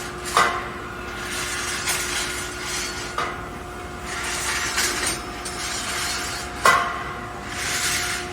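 Steel rebar mesh welding machine running: sharp metallic clanks of steel wire and machine parts, four in all, with ringing after them. Between the clanks there are swells of hissing and a steady hum.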